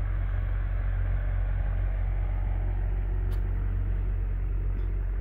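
A steady low rumble with a constant droning hum underneath, mechanical in character, unchanging throughout.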